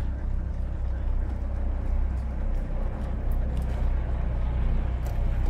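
Narrowboat engine running steadily, a deep even drone.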